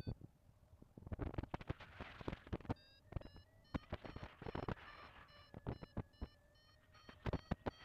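Paragliding variometer beeping in short, rapid beeps, its climb tone signalling rising air, with gusts of wind buffeting the microphone.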